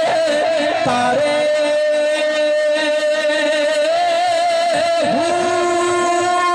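A man singing verse in long, drawn-out held notes that waver and slide in pitch, amplified through a microphone and public-address system.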